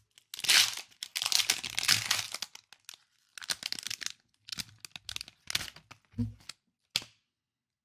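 Foil trading-card pack wrapper crinkling as it is handled and crumpled by hand: a long stretch of dense crackling, then shorter separate crinkles.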